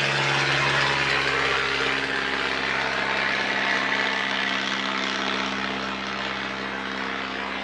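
Light propeller aircraft's engine droning steadily and slowly fading.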